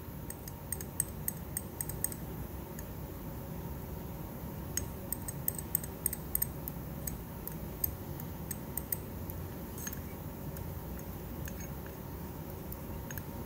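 Metal spatula scraping and tapping against a porcelain Büchner funnel and a glass watch glass while scraping off crystals: a scatter of light ticks and scrapes, in two busier runs, over a steady background hum.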